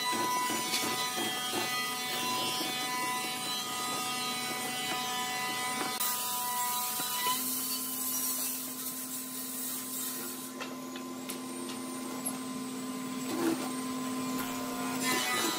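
Electric motor of a benchtop mortising machine running with a steady whine while its chisel bit cuts a slot into a red hardwood beam.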